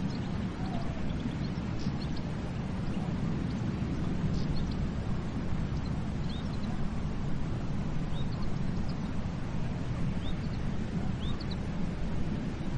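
Surf washing onto a beach as a steady rush, with short high bird chirps scattered throughout.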